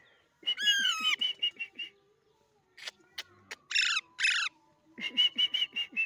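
Alexandrine parakeets calling: a run of short, quickly repeated notes, then two loud harsh squawks about midway, then another quick run of repeated notes near the end.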